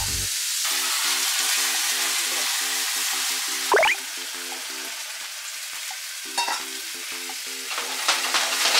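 Bean sprouts sizzling in a hot frying pan as they are stirred. About four seconds in, water is poured in with a brief loud burst, after which the sizzle is quieter, then builds again near the end.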